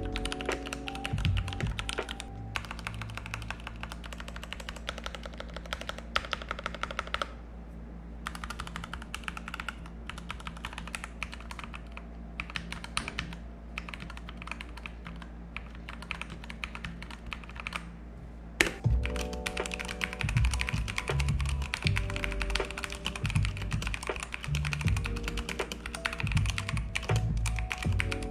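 Typing on a Keychron mechanical keyboard: a fast, continuous patter of key clicks and clacks, easing off briefly around a quarter of the way in, with one sharper knock about two-thirds through.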